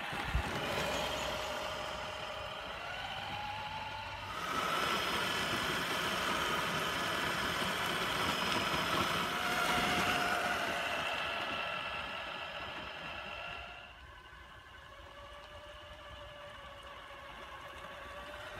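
Traxxas TRX-4 Ford Bronco RC crawler's electric motor and gearbox whining as it drives, the pitch rising and falling with speed. It is loudest while the truck passes close, then drops to a fainter whine for the last few seconds. A brief knock comes about half a second in.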